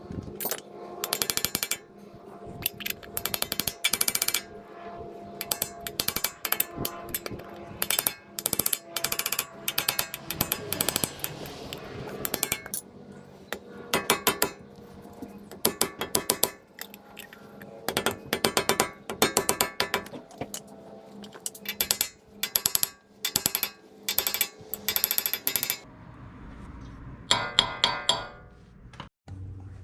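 Hand ratchet clicking in short, rapid bursts, repeated many times over with brief pauses between.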